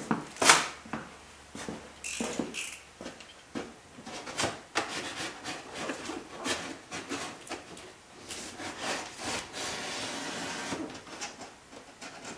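Utility knife slicing through a cardboard shipping box: an irregular run of scratchy, rasping cuts with clicks and rustles. The longest unbroken cut comes about eight to eleven seconds in. There is a sharp knock about half a second in.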